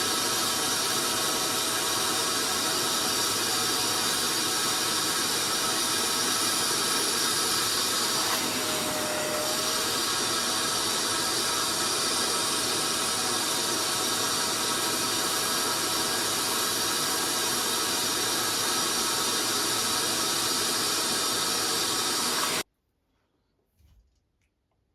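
Portable upholstery cleaning machine running with a steady suction hiss and a faint motor whine, used to wash a fabric chair; it stops abruptly near the end.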